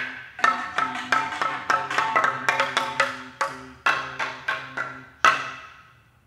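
Custom ceramic percussion instruments struck with mallets in a quick interlocking pattern of ringing, pitched strikes. The run ends on one loud strike a little after five seconds in, which rings and fades away.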